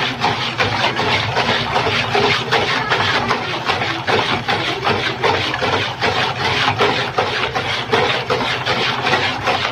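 Wire balloon whisk beating a runny egg, oil and sugar batter in a plastic bowl, the wires scraping and rasping against the bowl in quick, even strokes as the sugar is whisked in to dissolve.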